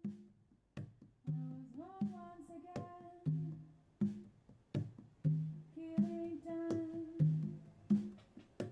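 Background music: plucked string notes over a low bass line that steps back and forth between two notes about once a second, with a tone that glides upward about two seconds in.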